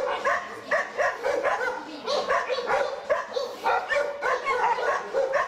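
Dogs barking in quick succession, about three short calls a second, during a dog attack: a Rottweiler and a Doberman mauling another dog.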